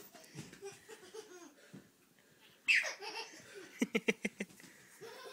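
A high squeal that slides down in pitch about two and a half seconds in, then a short burst of laughter, about six quick "ha" pulses, a second later.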